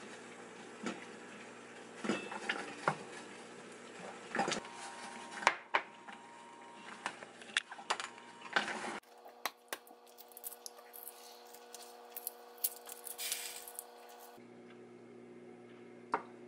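Kitchen utensil clatter: a spatula knocking and scraping in a frying pan of thick spinach curry, then a glass bowl and plastic lid being handled, in a string of sharp irregular clicks and knocks. A single sharp knock near the end as a kitchen knife cuts through a boiled egg.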